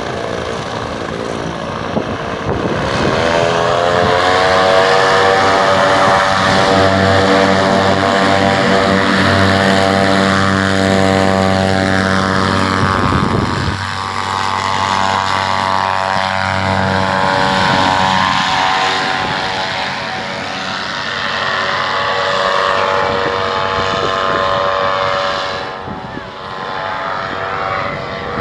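Vittorazi Moster 185 two-stroke paramotor engine and propeller revving up about two seconds in and then running at full power through the takeoff and climb. Its pitch and loudness shift as it climbs away, dropping near the end.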